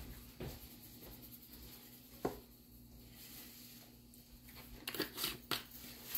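Shaker of garlic powder being shaken over a steak: faint soft rustling, a single click about two seconds in, and a few short shakes about five seconds in.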